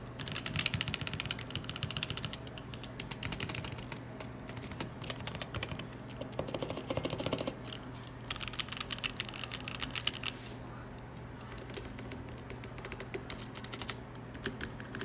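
Typing on a homemade mechanical keyboard with Kailh Box Red linear switches: quick runs of key clicks in bursts, thinning out for a second or so about two-thirds through, over a faint steady low hum.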